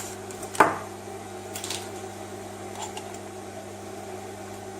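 A sharp, loud click about half a second in as the President CB radio is switched on, followed by a few lighter clicks of handling, over a steady low mains hum.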